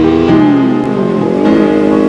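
Kawasaki Ninja 300 parallel-twin engine running under way, its revs sliding down and climbing back up about a second in. Background music plays over it.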